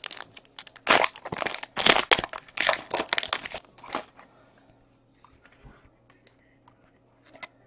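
A trading-card pack's wrapper crinkling as it is torn open and the cards are pulled out, for about the first four seconds; after that only a few faint clicks of the cards being handled.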